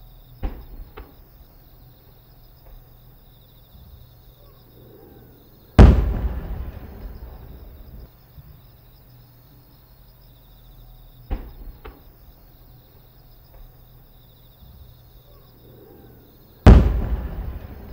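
Aerial firework shells bursting: two loud booms about eleven seconds apart, each rolling and echoing away over a couple of seconds, with fainter sharp pops in between. Crickets chirr steadily in the background.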